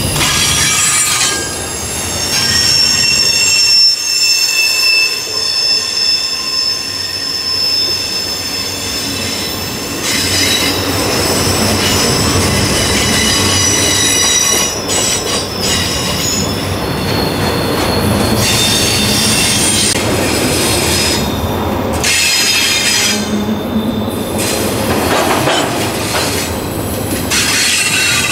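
Freight train rolling past, its wheels squealing on the rail with several high, steady tones over the running noise. The squeal is strongest for the first ten seconds or so, then comes and goes.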